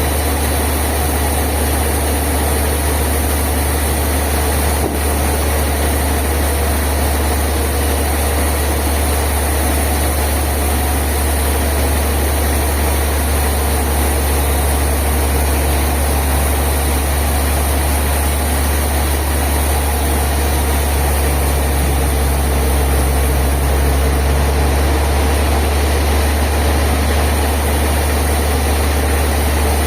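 Sawmill machinery running with a steady low engine-like drone and an even mechanical hiss, no distinct cuts or impacts.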